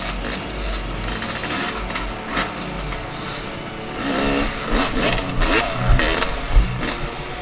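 Yamaha YZ250 two-stroke dirt bike engine running at low revs. About four seconds in it revs up and down as the bike climbs a stack of logs, with two sharp thuds near the end as it bumps over them.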